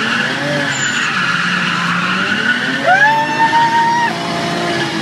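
Drift cars' engines running hard with tyres squealing, heard from inside the cabin of a drifting car; a sharp tyre squeal rises about three seconds in, holds for about a second and cuts off.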